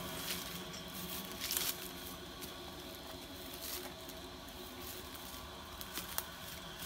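Faint rustling and scraping of hands rubbing over an elephant's ear skin, with a few sharp crackles, over a steady faint high hum.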